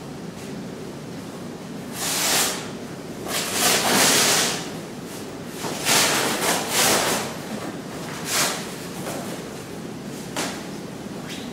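Rustling and swishing of large fabric costume pieces being shaken and flung, in a string of bursts, the loudest about four and six seconds in.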